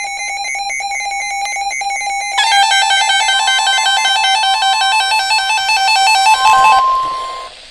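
Electronic alert tones of an Emergency Alert System broadcast on NOAA Weather Radio, signalling a special marine warning. A steady beeping tone comes first; about two seconds in it changes to a faster warbling pattern of alternating tones, joined by a long steady tone, and the sound cuts off shortly before the end.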